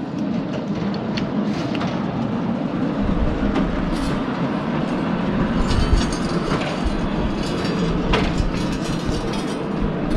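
Frontier OS27 portable sawmill at work on its steel track: a steady rattling, clattering run with scattered clicks, joined by a heavier low rumble about three seconds in.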